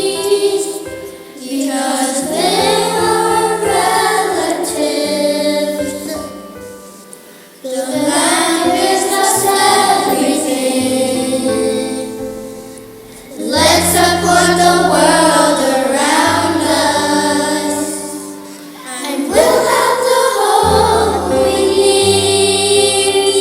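A song with voices singing over an accompaniment with bass notes, in phrases of about six seconds with brief breaths between them.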